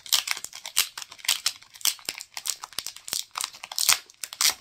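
Blind-pack merchandise wrapper crinkling and tearing as it is opened by hand, a quick irregular run of crackles.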